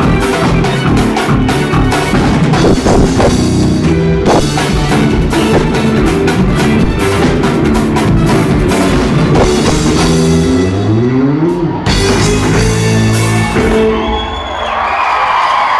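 Live rock band playing with drum kit, bass and guitar, with a rising slide in the low notes near the finish. The song ends about a second before the end, and a crowd starts cheering.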